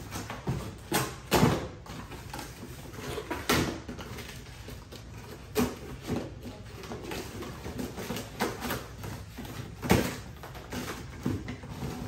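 Cardboard packaging and plastic vacuum attachments being handled as they are pulled out of the box: irregular knocks and clatters among rustling, with the sharpest knocks about a second in, near the middle and about ten seconds in.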